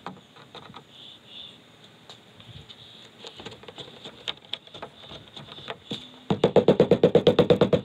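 Faint handling of a rubber seal, then about six seconds in a rubber mallet starts tapping rapidly and evenly, roughly ten light blows a second, seating the new one-piece pop-top gasket along the roof edge.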